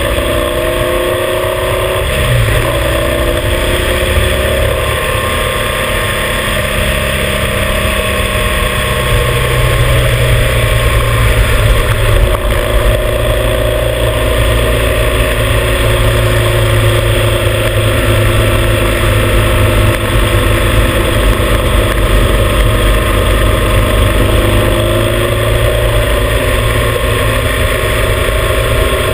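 Motorcycle engine running at road speed, heard from a mount by the front fender, under heavy wind and tyre noise. The engine pitch shifts down and back up a couple of times, about two seconds in and near the end.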